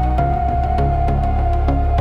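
Ambient electronic music: a held high synth note and sustained pads over a deep bass, with soft ticks about four a second.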